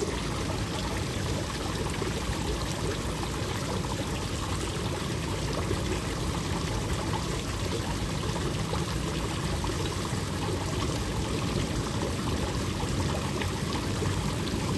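Water running steadily into a koi pond, a continuous trickling and pouring.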